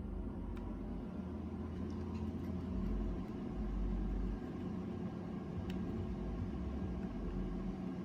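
Transformer soldering gun buzzing with a steady mains hum while its hot tip melts short pieces of solder wire onto a tinplate track rail. The hum swells briefly in the middle, with a couple of faint ticks.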